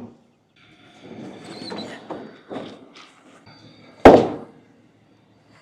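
A loud single slam about four seconds in, a door being shut, after a second or two of quieter rustling and shuffling.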